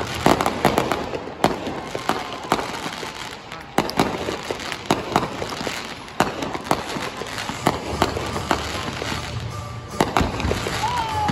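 Aerial fireworks display: shells bursting in a rapid, irregular string of sharp bangs and pops, with crackle between them.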